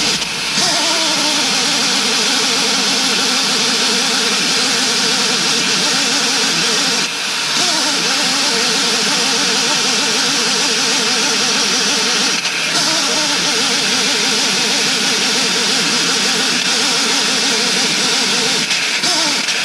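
Mini excavator's diesel engine running steadily with a loud hiss. Its pitch briefly sags and recovers a few times.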